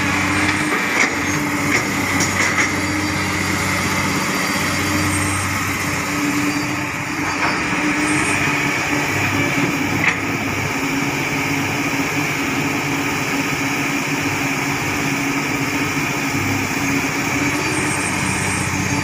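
Komatsu hydraulic excavator's diesel engine running steadily under working load, its note swelling and easing a little as the digging arm moves, with a few light knocks.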